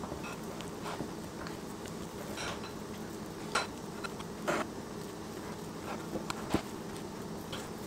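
A fork and spatula stirring and mashing almond flour and Greek yogurt in a glass bowl into a crumbly dough, with a few separate scrapes and light clicks of the utensils against the glass.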